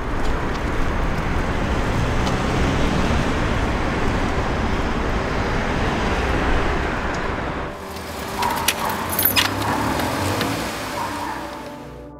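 City street traffic noise: a steady rumble of passing cars. It drops off about eight seconds in, and then come a few sharp clicks.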